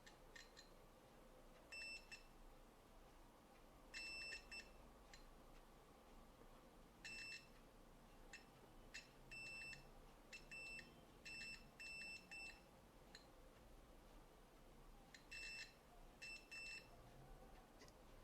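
Multimeter continuity buzzer beeping about a dozen times at irregular intervals, each a short, high, steady tone from a brief chirp to about half a second long, as the probes touch points on the camcorder's circuit board; each beep signals a low-resistance path such as a short or a ground connection.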